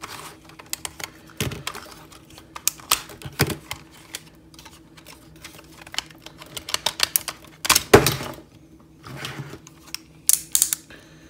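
Hard plastic parts of a B2FIVE Acid Rain action figure clicking and rattling as the legs are pulled off and the joints are worked by hand. The clicks come quickly and irregularly, with the loudest cluster about eight seconds in.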